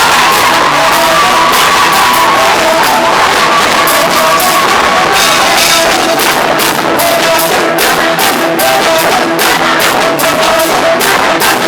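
Loud live praise music: a band with drums and guitar playing while voices sing and shout along, with a steady drum beat that stands out more in the second half.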